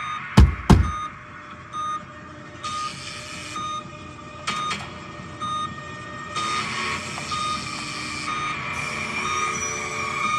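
Two deep heartbeat thumps at the start, then a steady electronic beeping, a short tone about one and a half times a second, with stretches of hissing noise.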